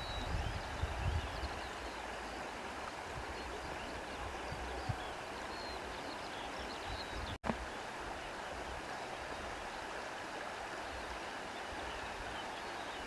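Steady rush of a flowing stream, with faint high chirps now and then. The sound drops out for an instant about halfway through.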